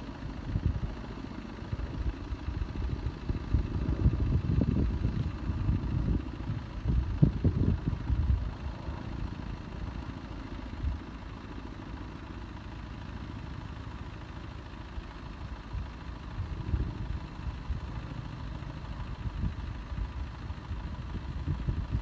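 Distant firefighting helicopter in flight: a low, uneven rumble of rotor and engine that swells a few seconds in and then settles, mixed with wind buffeting the microphone.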